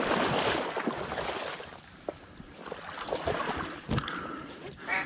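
Marsh water sloshing and tule stalks rustling and snapping as someone moves through the reeds in the water, with a short duck-like quack right at the end.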